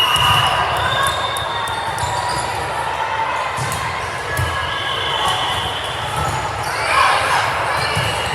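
Indoor volleyball game in a gym: repeated dull ball thumps, sneaker squeaks on the court floor and players' shouts, the shouting louder near the end.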